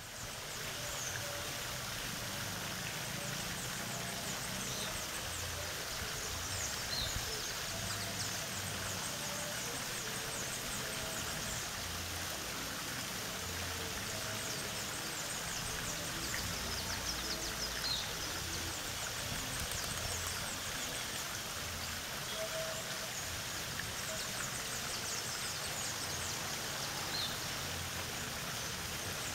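Tiered park fountain trickling and splashing steadily, with birds chirping and singing over it throughout.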